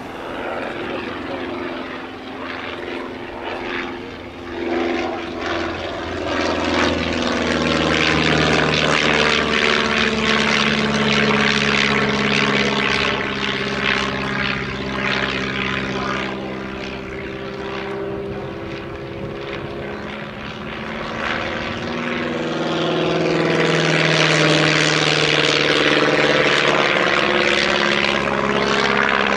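A Stampe SV4C biplane's piston engine and propeller in display flight. The engine note swells and shifts in pitch as the aircraft manoeuvres and passes, loudest twice: from about six seconds in and again near the end.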